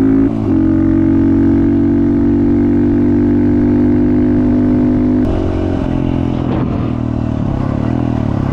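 Off-road vehicle's engine running at steady revs under way. It dips briefly just after the start, then drops in pitch and eases off about five seconds in.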